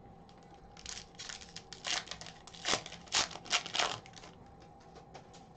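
Foil wrapper of a hockey card pack being torn open and crinkled by hand, in a run of crackling rustles from about one to four seconds in.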